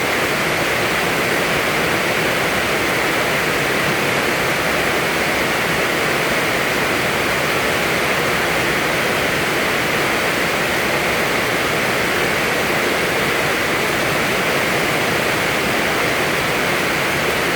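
Heavy rain falling steadily: a dense, even hiss with no breaks or separate drops standing out.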